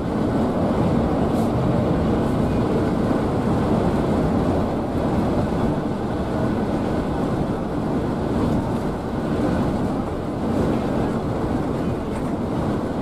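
Scania K360iB coach cruising on a highway, heard from inside the cabin at the front: a steady rumble of engine and road noise that holds level throughout.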